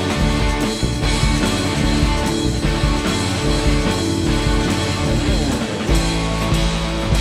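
Live rock band playing, with electric guitars over a drum kit.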